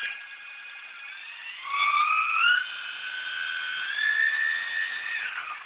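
Small RC helicopter's motor and rotors whining in flight, the pitch rising as the throttle goes up about two seconds in and again near four seconds, then dropping just before the end.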